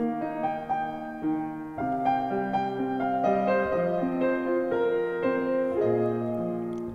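Keyboard in a piano sound playing slow held chords under a melody: the instrumental introduction to a sung hymn.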